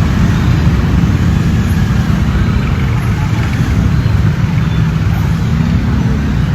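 Heavy road traffic: a loud, steady low rumble of engines and tyres.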